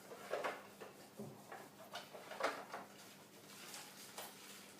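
Scattered light knocks and rustles of small items being handled and set down on a work bench.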